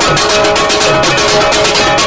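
Music with fast, rhythmic plucked strings over a steady beat.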